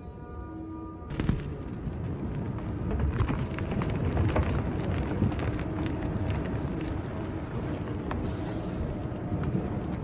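Background music with steady held tones, joined about a second in by a sudden low rumbling noise full of crackling clicks that runs on under it, with a short burst of hiss shortly after 8 s.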